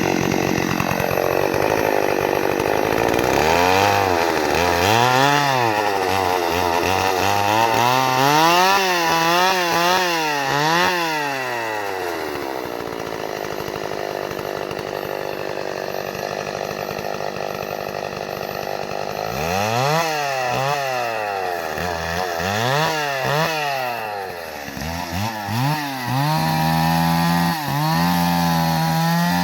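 Two-stroke chainsaw engine revved up and down over and over, with a steadier stretch in the middle, then held at a steady speed near the end.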